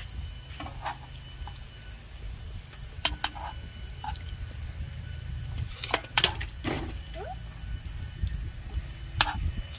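Metal tongs clinking and scraping against a frying pan as dried fish is turned, a few sharp clinks, the loudest about six seconds in, over a steady low rumble.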